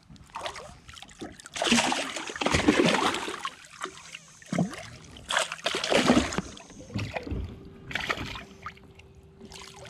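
Water splashing and sloshing against a bass boat's hull, in irregular bursts with knocks, heaviest in the first few seconds and again midway.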